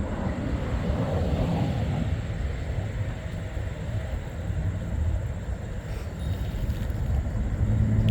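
Steady rumble of road traffic, with a vehicle engine's hum coming up near the end.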